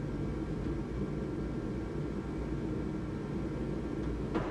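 Steady low rumbling background noise, with one short sharp knock near the end.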